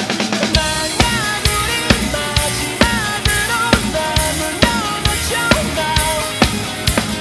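Acoustic drum kit played live, kick, snare and cymbals hitting several times a second, over the song's recorded band track with a wavering melodic lead line and no singing. The bass drops out briefly at the very start, then the full groove comes back in.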